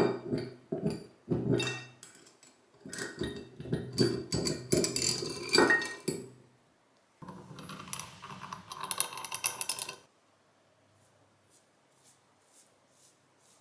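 A bench vise's steel lead screw rattling and clinking against the sliding jaw as it is handled and turned, in quick irregular metallic clicks. A second stretch of rattling stops suddenly about ten seconds in, leaving only faint soft taps.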